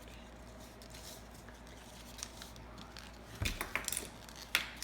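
Printer paper being folded over and creased by hand: quiet handling at first, then a cluster of crisp paper crackles about three and a half seconds in and one sharp crackle near the end.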